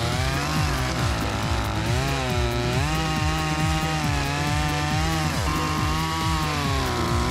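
Echo CS-2511T top-handle chainsaw, a 25cc two-stroke, running at high revs while cutting through a log. Its pitch dips under load and recovers several times.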